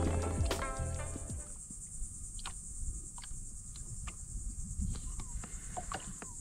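Background music fading out in the first second or two, leaving a steady high-pitched insect drone with scattered small clicks.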